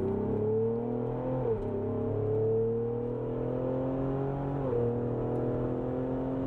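The twin-turbo 3.0L EcoBoost V6 of a Ford Explorer ST with a Borla ATAK exhaust, accelerating hard: the engine note climbs steadily, dropping briefly twice as the transmission shifts up, about a second and a half in and again near five seconds.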